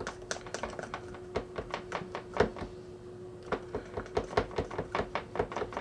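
Spoon clicking and tapping against a container, several irregular knocks a second, while slime powder is stirred into strawberry milkshake. A faint steady hum runs underneath.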